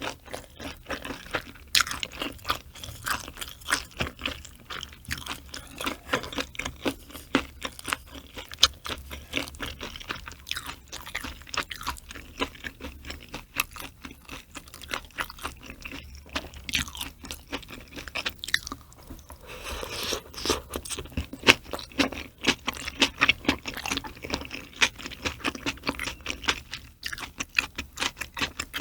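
Close-miked eating: steady chewing with many small, wet, crunchy clicks, from a mouthful of raw mackerel sashimi eaten with ripe green onion kimchi.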